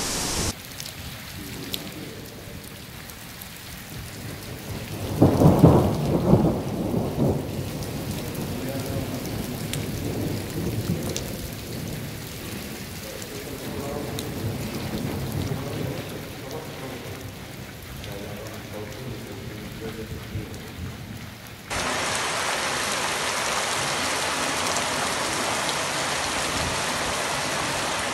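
Heavy rain falling, with a loud, low rumble of thunder about five seconds in that lasts a couple of seconds. Near the end the sound changes suddenly to a steady, brighter hiss of downpour on a street.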